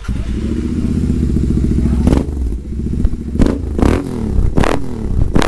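A Royal Enfield GT 650's 648 cc parallel-twin engine fires up through a newly fitted aftermarket full-system exhaust (new header pipes and slip-on silencers) and idles loudly. From about two seconds in it is revved in five short, sharp throttle blips.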